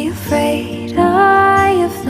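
Background song: acoustic guitar with a female voice holding a long sung note about a second in.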